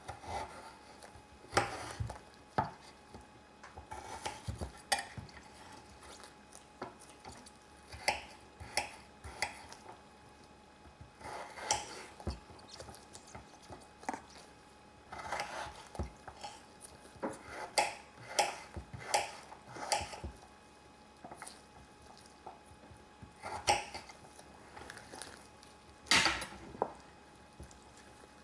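A kitchen utensil clinking and scraping against a pan in irregular bursts of short knocks with brief pauses, some of the knocks ringing briefly.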